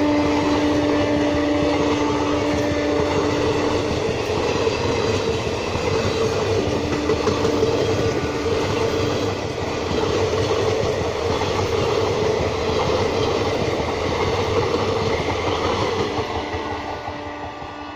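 Passenger coaches of an Indian Railways express train passing close by at speed: a continuous loud rush of wheels on rail with clickety-clack, and a whine that comes and goes in the first half. The sound falls away near the end as the last coach, a luggage van, goes past.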